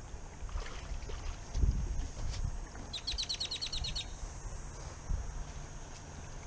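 A bird gives a rapid trill of about ten short high notes, lasting about a second, a little past the middle. Low knocks and bumps from kayak gear being handled come before it.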